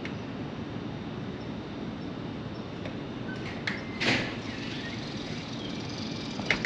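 Steady low rumble of a moving vehicle, with a few clicks and a brief louder squeak about four seconds in.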